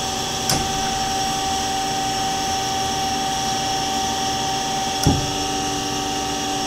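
Duet automatic horizontal bandsaw running in its automatic cycle, its motors, hydraulic pump and chip conveyor making a steady hum with a constant whine. Two short clicks or knocks cut through it, about half a second in and again about five seconds in, the second louder.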